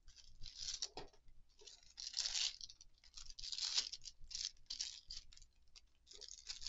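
Thin clear plastic bag crinkling and rustling in irregular bursts as an action figure is pulled out of it. The loudest rustles come about two seconds in and again near four seconds.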